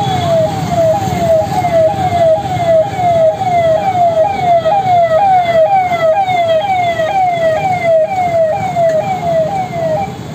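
Electronic siren on a convoy escort vehicle wailing in quick falling sweeps, each dropping in pitch and jumping back up about twice a second, then cutting off near the end. Vehicle engines run underneath.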